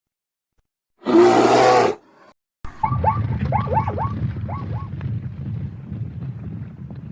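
A single loud animal roar lasting about a second, starting about a second in. After a short gap, a steady low rumble begins, with a quick series of short, falling chirps over it for about two seconds.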